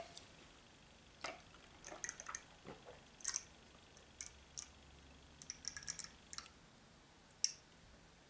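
Eating sounds: scattered soft, wet clicks and smacks from chewing food, irregular and quiet, with a sharper click near the end.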